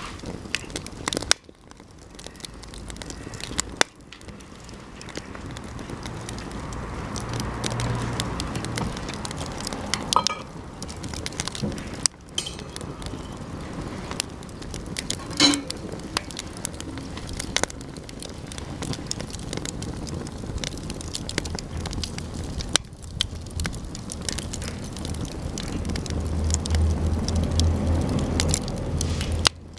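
Campfire of sugi (Japanese cedar) offcuts burning, with a steady crackle and many sharp pops as the wood bursts, a few of them louder.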